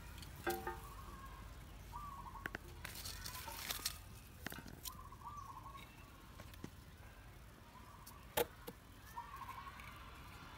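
Kittens play-fighting on a stone slab: scattered sharp clicks and scuffs of paws and claws on the stone, the loudest about eight seconds in. Short high chirping calls come every few seconds over a steady low rumble.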